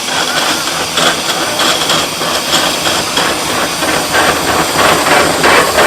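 1910 Burrell steam traction engine running under load while driving a hay baler by belt: a steady steam hiss with a repeating beat of exhaust chuffs and mechanical clatter.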